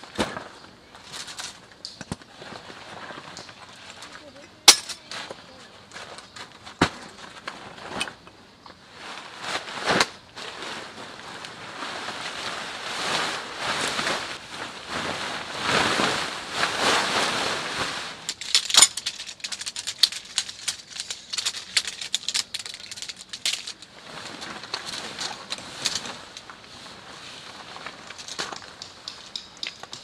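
Nylon tent fabric rustling and flapping as a backpacking tent is pulled out and shaken open, loudest in the middle. Several sharp clicks and knocks come in the first few seconds, and there are quick crackles and crunches on gravel later on.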